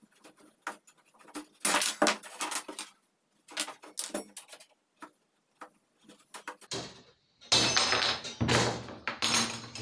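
Hand snips cutting sheet-metal strips to length, heard as sharp clicks and short metallic clinks of strips being handled on a wooden workbench. The clattering gets louder and busier over the last three seconds.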